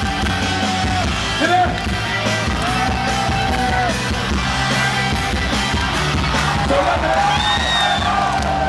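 Live rock band playing at a concert, with a voice holding several long sung notes over the music.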